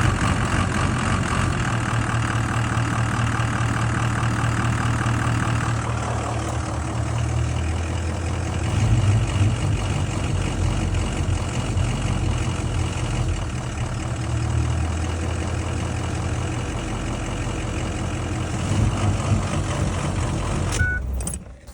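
Ford 6.0L Power Stroke turbodiesel V8 idling with a rough, uneven idle that is still present after two oil changes with RevX additive.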